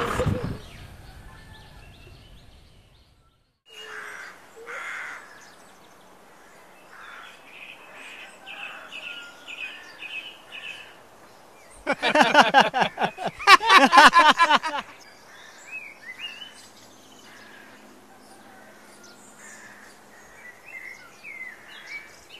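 Village outdoor ambience with birds chirping and crows cawing, after a vehicle's engine fades away at the start. About twelve seconds in, a loud creaking runs for about three seconds: the iron pulley wheel of a village well turning as a bucket of water is drawn up.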